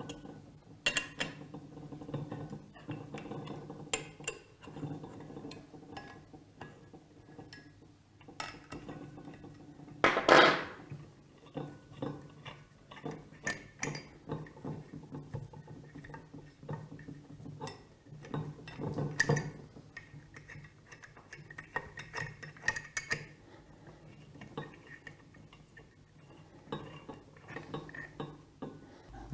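Metal tools and screws clinking and clicking on a pump's metal body as the four socket-head screws holding its air valve are undone, with a louder clank about ten seconds in, over a faint steady hum.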